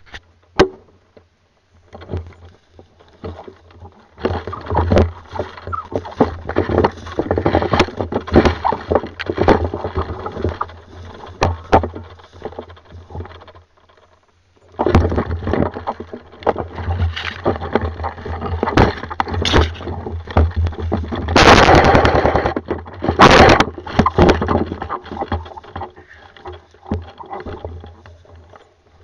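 Airsoft guns firing in bursts and single shots, sharp clicks at irregular intervals with two loud spells near the end, over a steady low rumble.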